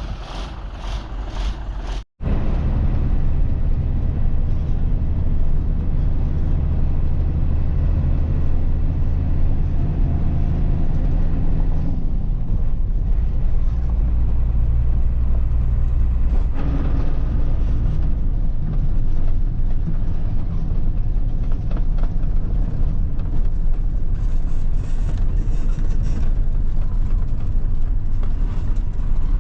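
Hino truck on the move: steady, loud engine and road rumble. It starts after a brief break about two seconds in.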